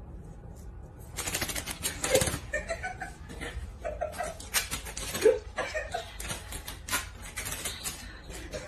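Paper towel crinkling and scraping against a tiled floor as a cat steps about with it stuck to its paws, in quick irregular rustles and clicks.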